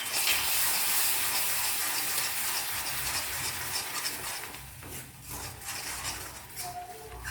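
Hot jaggery syrup with grated ginger sizzling after a splash of water hits it, while a spoon stirs it in the pan. The hiss starts suddenly and loudly, then dies down gradually over several seconds.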